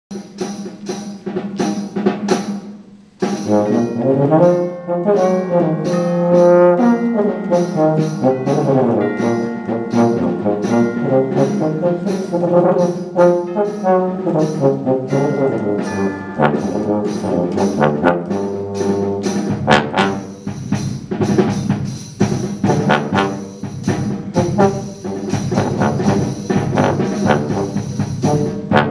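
A concert band playing: a steady percussion beat at first, then full brass chords with tuba and woodwinds coming in a few seconds in. The percussion turns quicker and busier about two-thirds of the way through.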